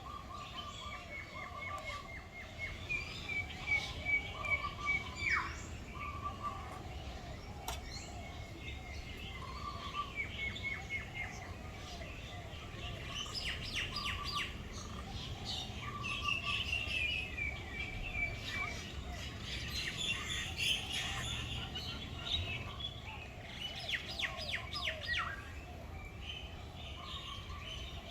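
Several kinds of birds chirping and calling over one another, with repeated short whistled notes and runs of quick, high chirps.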